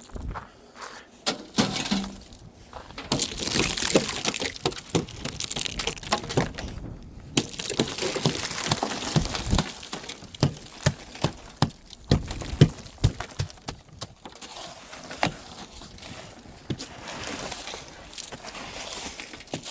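Snow and ice being cleared off a van by hand: long stretches of scraping and brushing broken by many sharp cracks and knocks of ice breaking loose.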